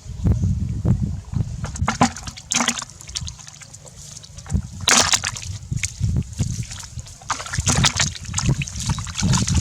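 Water sloshing and splashing in irregular bursts, over a low rumble.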